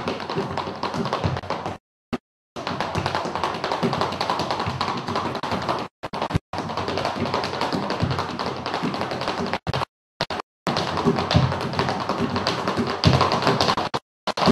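Rapid flamenco footwork (zapateado): the heels and toes of flamenco shoes striking a wooden stage floor in a fast, dense stream of taps. The stream cuts out abruptly into dead silence several times, for a fraction of a second each time.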